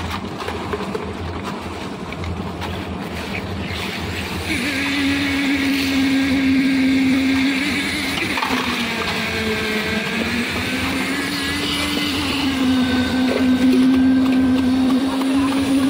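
Engine-driven concrete mixer running steadily, with a motor tone that drops in pitch for a moment about halfway through and then comes back up.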